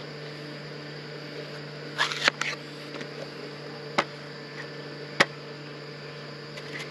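Kitchen knife cutting through a large pear and knocking on a wooden cutting board: a short cluster of sharp knocks about two seconds in, then single knocks near four and five seconds. Under it runs the steady low hum of a small electric fan.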